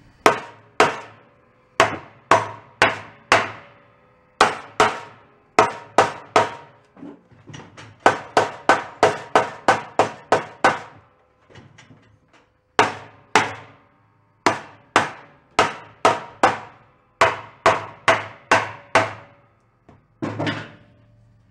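Nylon mallet beating on the end of the crankshaft of a Kohler Command 18 hp engine, in bursts of sharp blows about two to three a second, each with a short metallic ring from the block. The crankshaft is stuck in the case and does not come free.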